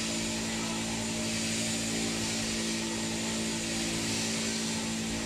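Electric sheep-shearing machine running steadily: a constant, even hum with a hiss over it.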